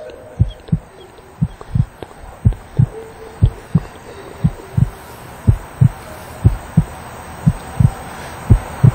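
Heartbeat sound effect: low double thuds, lub-dub, about once a second, over a faint hiss that grows louder near the end.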